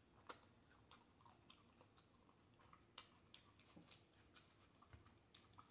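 Faint chewing of a mouthful of crunchy hard-shell taco: scattered small crackles and mouth clicks, irregular and soft.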